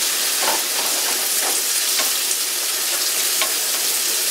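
Pepper bacon frying in a skillet with a steady sizzle, stirred and scraped around the pan by a utensil every so often.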